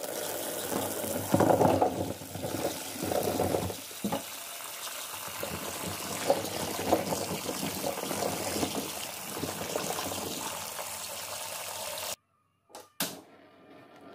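Tap water running and splashing into a wok full of small round green eggplants, louder and splashier in the first few seconds, then steadier, and cutting off suddenly near the end.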